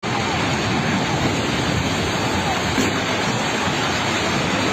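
Steady, loud rushing noise with no distinct events in it.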